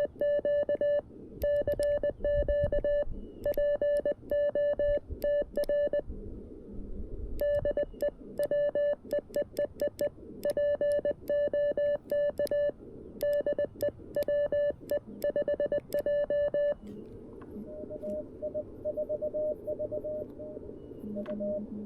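Morse code (CW) from a CFT-1 transceiver: a loud, clean tone of about 600 Hz keyed in dots and dashes for roughly the first seventeen seconds, the operator sending on a 3D-printed key. Then comes receiver hiss with a fainter station's code at the same pitch.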